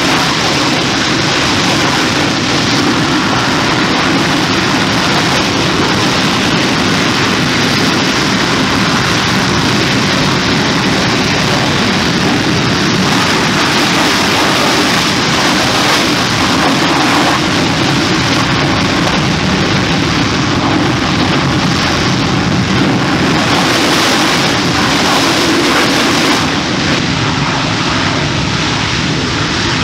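English Electric Lightning's twin Rolls-Royce Avon turbojets running on the ground while the aircraft stands still: a loud, steady jet rush. The sound eases off slightly near the end.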